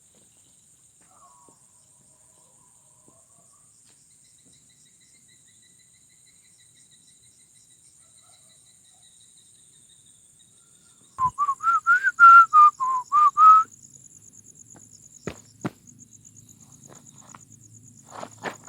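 Insects, crickets by their sound, trill steadily and high-pitched throughout. About eleven seconds in, a loud string of about eight short whistled notes rises and falls in pitch for two to three seconds. A few sharp clicks follow near the end.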